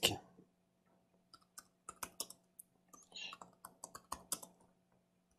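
Computer keyboard being typed on: a short run of separate key clicks, starting about a second in and stopping well before the end, over a faint steady hum.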